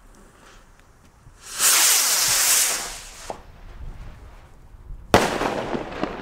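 A firework rocket launching with a loud hiss lasting about a second and a half. About three seconds later comes a single sharp bang that trails off.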